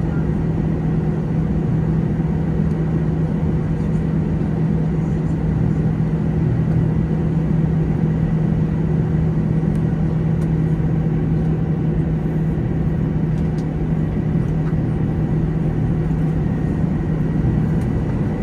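Steady cabin drone inside an Airbus A321 waiting on the ground with its engines idling: a strong low hum with a faint high whine over it.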